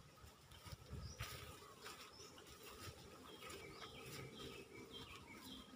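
Quiet rural ambience: a bird calls faintly in a run of short, high notes in the second half, over soft footsteps through grass.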